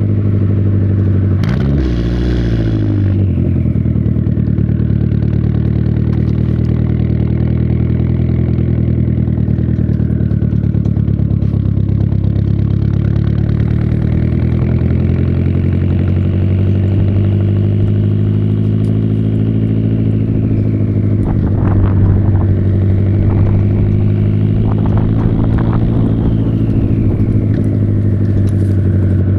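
Volvo 480 Turbo's 1.7-litre turbocharged petrol engine running steadily under way, with a brief drop and recovery in engine note about two seconds in. A high whine rises and falls several times over the engine drone, and a few sharp clicks come about two-thirds of the way through.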